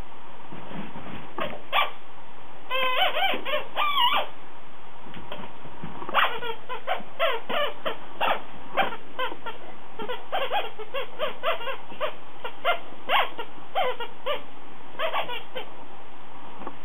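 Dog chewing a small rubber squeaky toy, making it squeak again and again in short squeaks that bend in pitch: a quick cluster about three seconds in, then steady squeaking from about six seconds on.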